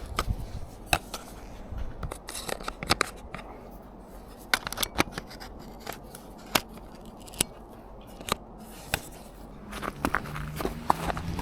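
Lens change on a Canon EOS M3 mirrorless camera: irregular sharp clicks and scrapes as lens caps come off and a lens is twisted off and onto the bayonet mount. Near the end a low hum that rises in pitch begins.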